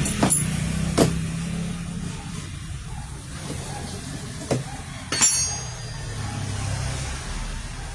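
Sharp metal knocks and clinks of tools and parts during a washing machine gearbox replacement: four knocks, the last, about five seconds in, ringing briefly. A steady low hum like a passing vehicle's engine runs underneath.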